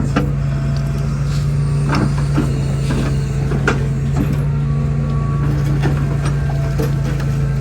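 Hitachi mini excavator's diesel engine running steadily, with scattered short knocks and clacks over it, the loudest a little under four seconds in.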